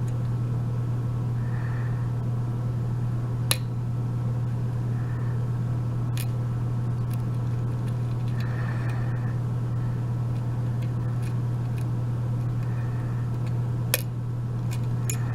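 A lock pick and tension wrench working in a Sargent mortise lock cylinder: a few sharp clicks, three of them louder, about 3.5, 6 and 14 seconds in, with faint scraping between them. A steady low hum runs underneath and is the loudest thing throughout.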